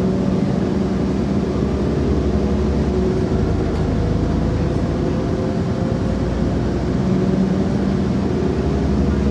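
Steady drone of a diesel train's engine with a low rumble, heard from inside the carriage; its engine tone drifts slightly in pitch.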